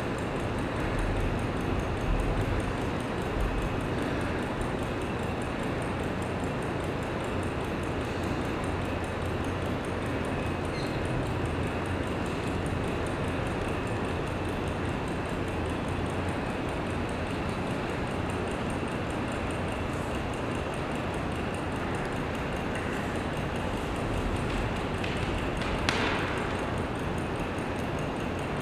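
Steady room noise of a large studio hall, an even hiss-like hum, with a few soft low thumps in the first few seconds and a brief brighter sound a couple of seconds before the end.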